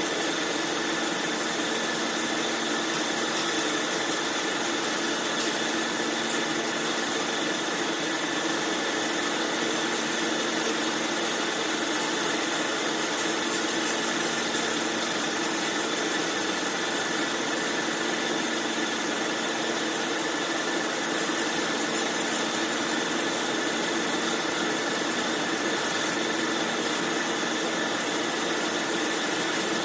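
Band saw machine running steadily, an even mechanical hum and whine with no change in pitch or level.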